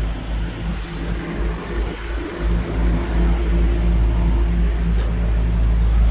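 Outdoor urban background: a steady low mechanical hum with a heavy, fluctuating wind rumble on the phone's microphone, growing louder about halfway through.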